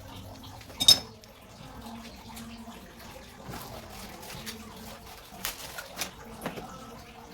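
Installation work on a washing machine's new water tap and hose: one sharp clank about a second in, then a few lighter clicks and knocks later on, over a faint steady background that may include some trickling water.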